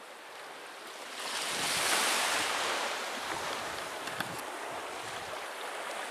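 Small sea wave washing onto the beach: a rush of surf that swells about a second in and slowly ebbs away, with a couple of faint clicks near the middle.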